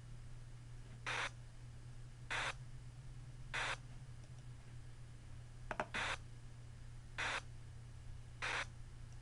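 Six short bursts of hiss-like noise, in two groups of three about 1.2 seconds apart, played as hearing-test stimuli by the Angel Sound software. A pair of quick clicks falls between the two groups, over a low steady hum.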